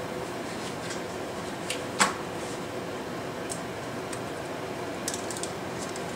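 Scattered light kitchen taps and clicks over a steady hiss, with one sharper clink about two seconds in, as seasoning is handled at the pot.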